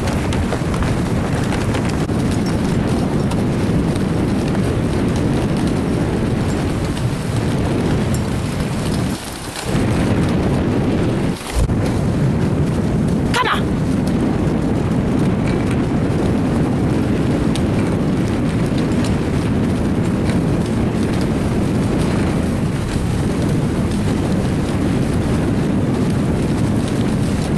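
Steady rumbling rush of a dog sled moving over a snow-packed track, pulled at a run by a team of Hungarian greyhounds. A short high squeak comes about halfway through.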